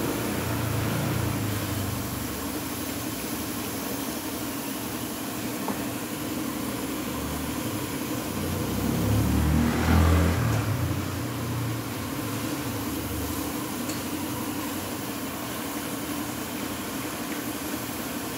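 Car-wash pressure washer running, with steady spray noise and a motor hum that swells lower and louder for a few seconds about halfway through.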